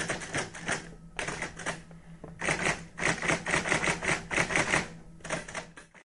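Fast, sharp clicking in about four runs broken by short pauses, over a faint steady hum.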